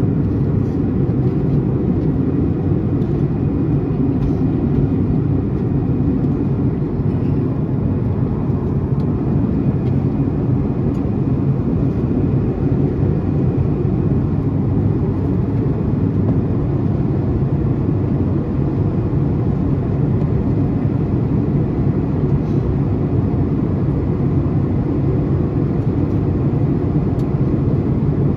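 Cabin noise of a Boeing 737-900ER cruising at altitude: the steady, low drone of its CFM56-7B turbofan engines and the airflow over the fuselage, unchanging throughout.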